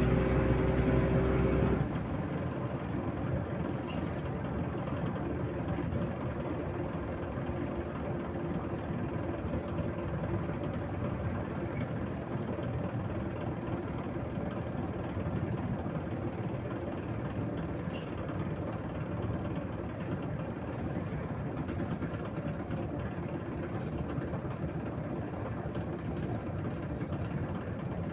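The diesel engine and ride noise of a MAZ 103 city bus, heard from inside. The engine runs loud for the first two seconds, then drops suddenly to a quieter, steady drone with road rumble and a few light rattles.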